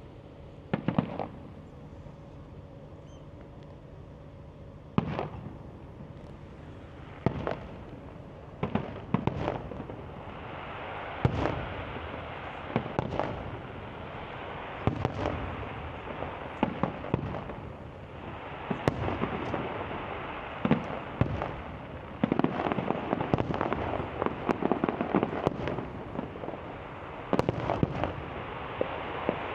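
Fireworks display: separate bangs every second or two at first, growing into denser volleys of bangs and crackle in the second half.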